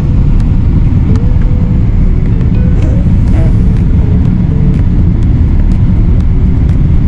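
Steady loud rumble of airliner cabin noise inside a Boeing 777 on its descent to land: engine and airflow noise heard from a window seat.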